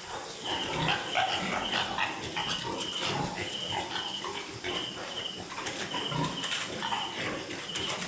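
Piglets grunting and squealing, with a short high chirp repeating about twice a second.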